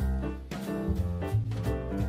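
Background music: a jazz-style tune with a moving bass line and a steady beat.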